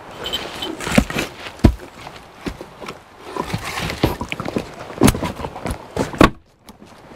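Split firewood logs knocking and thudding as they are handled and set onto a woodpile: a handful of irregular wooden knocks with rustling between them.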